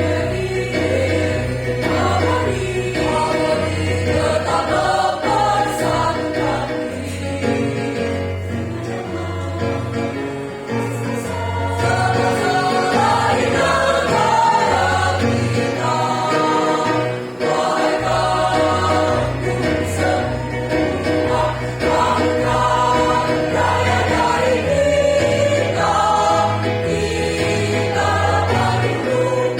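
A choir singing a song together, with instrumental accompaniment carrying a bass line beneath the voices.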